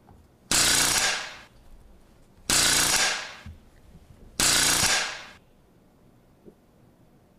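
Three bursts of a pneumatic rivet gun hammering, each about a second long, starting abruptly and tailing off, about two seconds apart.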